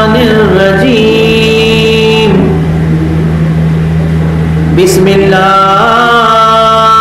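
A man's voice chanting unaccompanied through a microphone and PA, drawing out long held melodic notes. The chant pauses for about two seconds in the middle and resumes after a brief click, over a steady low electrical hum.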